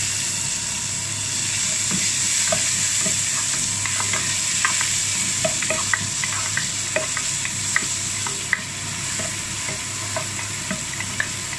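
Sliced onion, ginger and garlic sizzling in oil in a pot, with a wooden spatula stirring and scraping, giving many light knocks against the pot.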